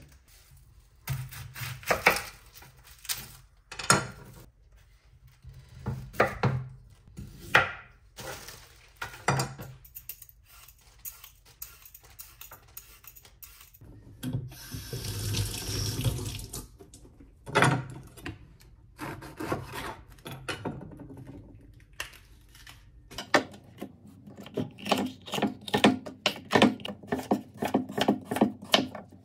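Kitchen prep sounds: scattered knocks and clatter of produce being handled, then a tap running briefly about halfway through. From about three-quarters of the way in, a kitchen knife chops carrot and pepper on a wooden cutting board in quick, even strokes.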